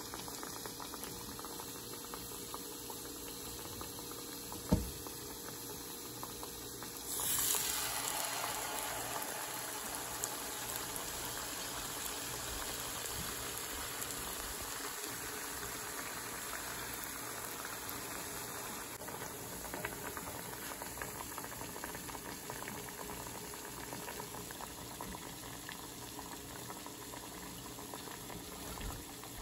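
Mung kavum deep-frying in hot coconut oil: a steady bubbling sizzle that swells about seven seconds in, as a second batter-coated kavum goes into the oil. A short knock about five seconds in.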